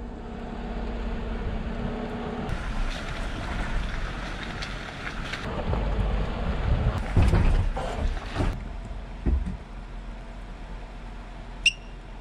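Wind blowing across the microphone over a low steady rumble, swelling briefly about seven to eight seconds in, with one short high chirp near the end.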